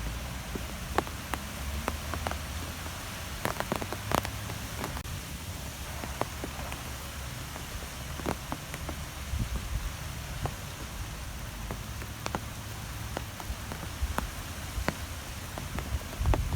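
Steady wind ambience with a low rumble, scattered with short sharp ticks and patters.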